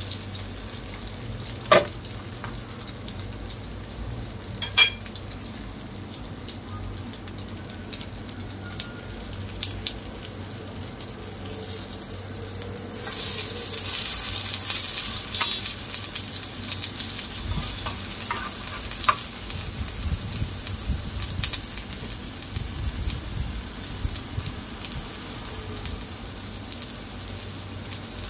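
Tortang talong (eggplant omelette) frying in oil in a nonstick pan: steady sizzling, louder for a few seconds about halfway through. Two sharp taps of the metal spatula on the pan come in the first few seconds.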